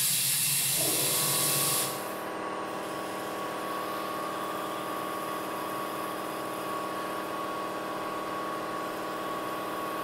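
Compressed air hissing loudly from a tire inflator chuck for about two seconds, then cutting off. Under it, starting about a second in, the steady electric-motor hum of an air compressor runs at an even pitch.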